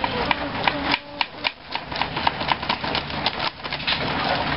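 Rapid, irregular tapping and knocking, several sharp clicks a second, with a pause now and then.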